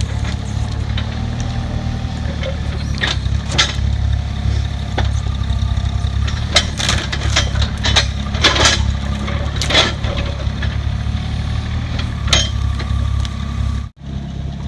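Excavator's diesel engine idling steadily as a low hum, with scattered sharp knocks and clicks over it.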